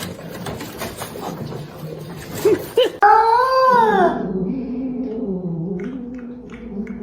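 A pet animal's long vocal call. About three seconds in, a loud call rises and falls in pitch, then trails into a lower, wavering, drawn-out note that lasts to the end.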